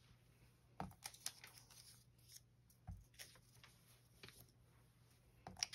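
Faint rustling and crinkling of paper labels being peeled off a whiteboard, with a few soft knocks scattered through it.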